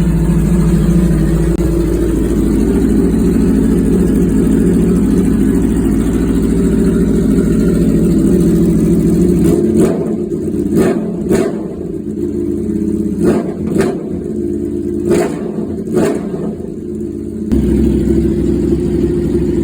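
2019 Aprilia Tuono V4 Factory's V4 engine through an Arrow exhaust, idling steadily, then blipped about six times in quick revs near the middle before settling back to idle.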